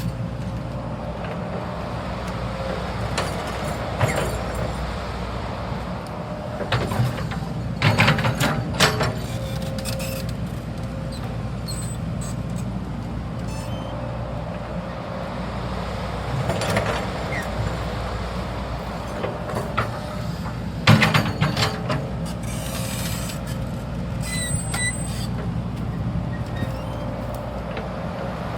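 Hydraulic excavator's diesel engine running steadily, with several bursts of sharp clanks and knocks, the loudest about eight seconds in and again about twenty-one seconds in.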